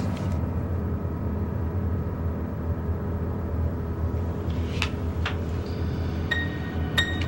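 Low, steady rumbling drone with faint held tones underneath, typical of a suspense score cue. A few light clicks come in the second half, two of them with a short high tone.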